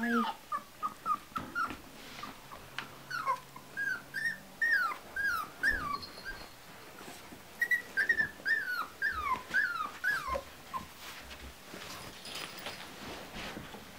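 Puppies whimpering: quick runs of short, high cries that fall in pitch, with a short pause around the middle, dying away near the end.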